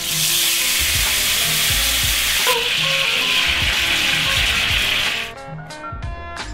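Loud sizzling as a watery sauce of ketchup, jam, soy sauce and water hits a hot cast-iron skillet around seared duck breasts. It cuts off suddenly about five seconds in, leaving soft background music with a steady beat.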